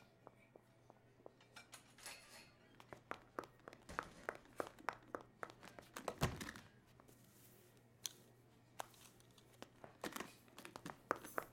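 Quiet handling sounds: a run of small clicks, crackles and rustles over a faint steady hum, with one louder thud about six seconds in.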